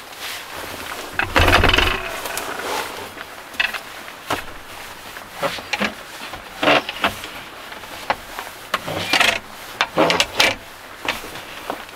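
Camping gear handled and set down by hand inside a small van: a run of knocks, clunks and rustles, the loudest a heavy thump about a second and a half in.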